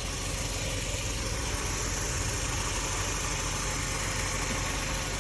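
2001 Saturn L-Series engine idling steadily, left running to warm up and test whether the cooling fan switches on.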